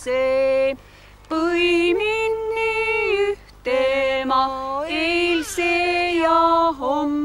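Women singing unaccompanied in long held notes, with a few gliding pitch changes, in phrases broken by short pauses.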